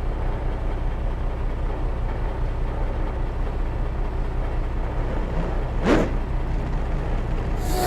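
Dubbed-in sound effect of a tank engine rumbling steadily, with a short rising sweep about six seconds in and another sudden sound starting near the end.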